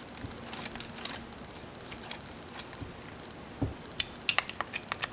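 Light metallic clicks and taps of a T-handle Allen key and small bolts being handled on an engine, with a quick run of sharp ticks from about three and a half seconds in.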